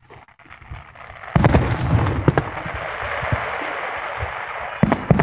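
Aerial fireworks shells bursting. A sharp bang comes just over a second in, then several seconds of dense crackling, with more sharp bangs near the end.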